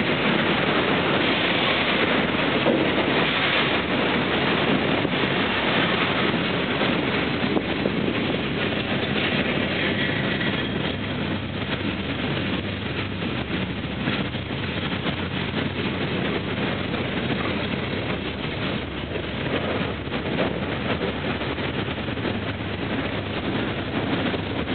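Freight cars rolling past: steel wheels on rail making a steady rumble and clatter, easing slightly about halfway through as loaded flatcars give way to hoppers and empty gondolas.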